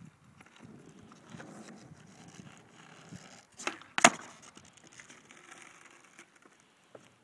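Skateboard wheels rolling on asphalt, with small clicks, then a trick about four seconds in: the tail pops, and a moment later the board lands with a loud slap, the loudest sound.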